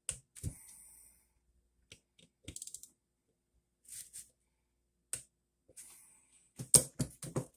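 Hand ratchet clicking in short runs, with a few louder metal knocks near the end, as bolts on an outboard engine block are tightened.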